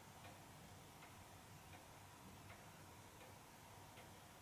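Two-weight Vienna wall clock ticking faintly and evenly, about one tick every three-quarters of a second.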